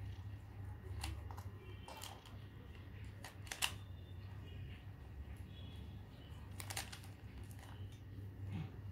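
Plastic 3x3 Rubik's cube being turned by hand: irregular clicking and clacking of its layers as they rotate, over a steady low hum.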